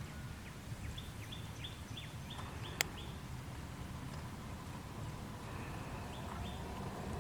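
A bird calling a quick run of short, high, falling notes, about four a second, then a few more near the end, over a steady low rumble. A single sharp click comes about three seconds in.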